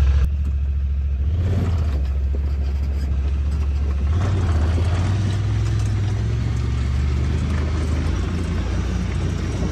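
Honda side-by-side UTV's engine running under way, heard from the driver's seat, with tyre and road noise. The engine note steps to a new pitch a few times as it drives.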